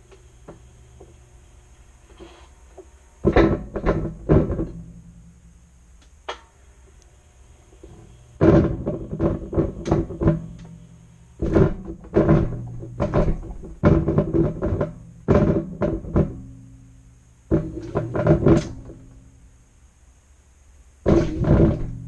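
Samsung front-loading washing machine heard from inside its drum, turning in bursts of one to five seconds: clusters of knocks and rattles over a low motor hum, with quiet pauses between, as the drum tumbles and stops.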